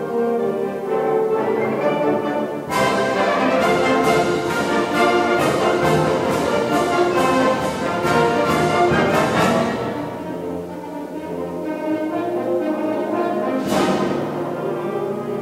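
Concert wind band playing. Sustained brass and woodwind chords open it; about three seconds in the full band comes in loud with regular percussion strikes, about two a second, for some seven seconds. It then drops back to softer held brass chords, led by the French horns, with a single crash near the end.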